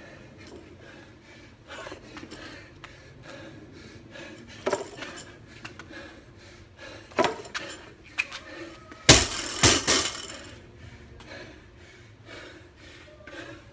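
Metal clanks and knocks of gym weights: a few single knocks, then a louder cluster of clanks about nine seconds in.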